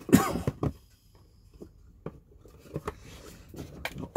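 A short cough into a hand, then scattered light clicks and rustles of a cardboard box and paperwork being handled.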